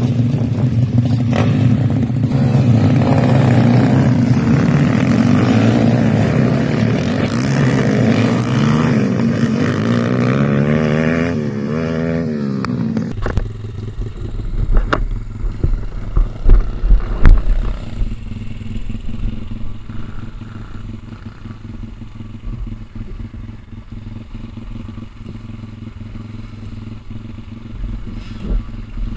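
Several pit bike engines idling and blipping together, their notes wavering up and down. About 13 s in, the sound cuts to a single dirt bike idling steadily, with low rumbling and a few knocks on the microphone.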